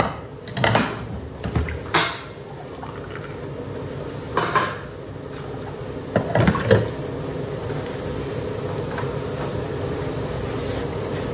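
Kitchen clatter: metal utensils and cookware (a metal ladle against a steel wok, pots and dishes being handled) clanking in a handful of separate knocks during the first seven seconds, over a steady hum.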